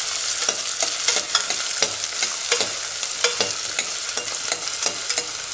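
Chopped onions and green chillies sizzling in oil in a stainless steel pot as they sauté, with a metal spatula scraping and clicking against the pot in irregular strokes as they are stirred.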